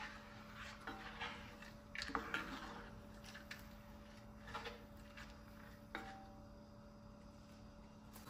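Light clicks and knocks of kitchen utensils and dishes being handled, the loudest about two seconds in, over a faint steady hum.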